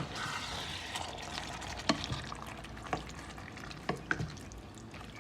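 Stirring chicken curry in a pan just after water has been added: a utensil scraping and sloshing through the liquid and chicken pieces, knocking against the pan roughly once a second, over a faint steady sizzle.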